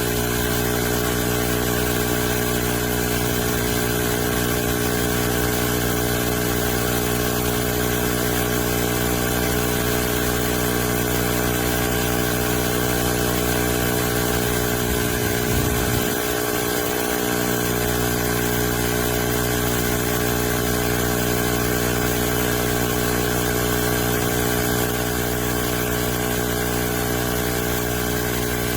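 Cordless 20V tire inflator's small piston compressor running steadily under load as it pumps up a tire, with a brief waver in its pitch about halfway through.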